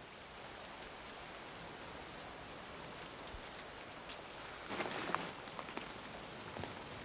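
Steady rain falling, with a brief rustle about five seconds in.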